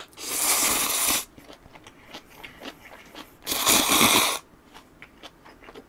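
A person slurping instant ramyeon noodles twice, each slurp about a second long, with faint chewing clicks in between.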